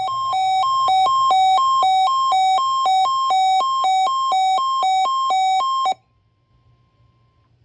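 A weather radio receiver's alarm, set off by the NOAA Weather Radio warning tone: a shrill two-note warble that switches between its notes about twice a second, over a steady tone. The warble cuts off suddenly about six seconds in, and the faint steady tone carries on for about another second and a half.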